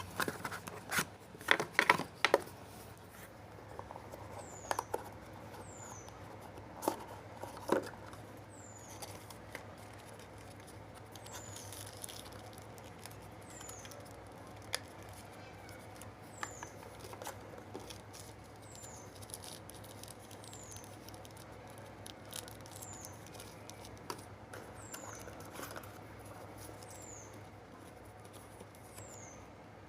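Hands unpacking a smartwatch box, with scattered clicks and taps of packaging and plastic. The clicks come thick in the first few seconds and sparse after that. A short, high, falling chirp repeats about every second and a half.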